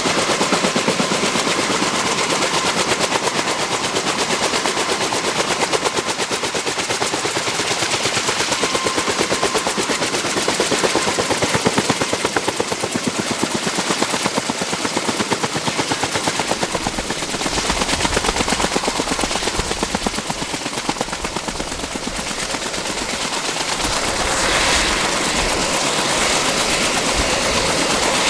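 Kaman K-1200 K-MAX helicopter's intermeshing twin rotors beating in a rapid, even chop, over a steady high whine from its turboshaft engine. A low rumble joins in about two-thirds of the way through.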